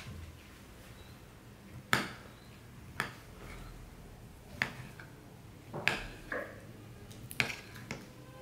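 A knife blade cutting through cauliflower florets and clicking against a ceramic plate: about seven sharp taps at uneven intervals, roughly a second apart, the first about two seconds in and the loudest.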